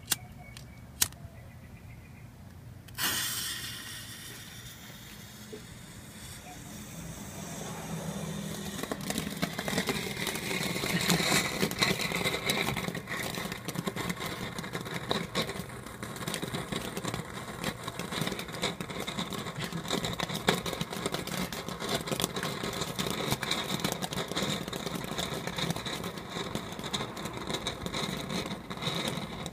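A lighter clicks twice, then the fuse catches with a sudden sharp hiss about three seconds in. From about seven seconds a ground fountain firework sprays sparks with a steady hiss and dense crackling that builds over a few seconds and keeps going.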